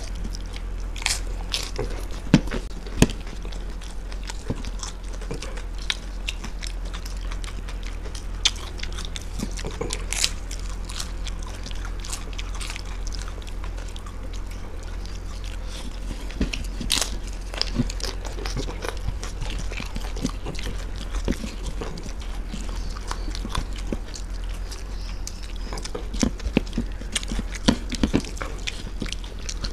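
Two people chewing and crunching papri chaat (crisp fried papri wafers topped with sev), close to a table microphone: scattered crisp crunches and bites over a steady low hum.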